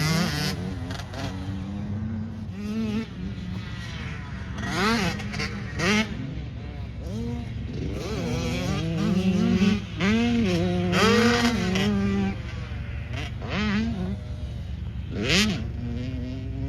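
Off-road race vehicle engine revving up and down again and again, its pitch rising and falling as the throttle is worked, over a steady low drone.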